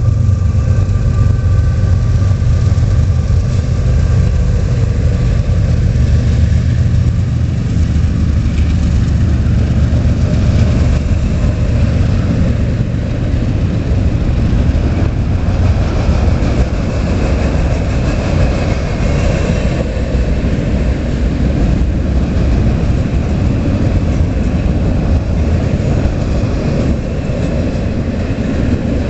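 CSX freight train passing: a diesel locomotive followed by a long string of intermodal container and trailer cars, a steady heavy rumble of wheels on rail that goes on without a break.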